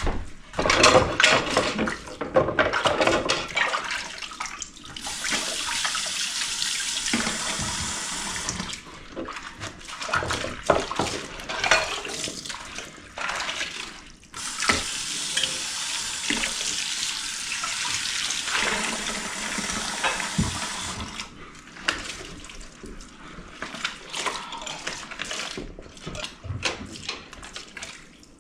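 Kitchen sink tap running in two spells of several seconds while a pot is washed and rinsed, with knocks and clatter of the pot against the sink between them.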